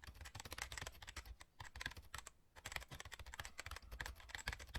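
Rapid, irregular clicking like typing on a keyboard, with a brief pause about two seconds in.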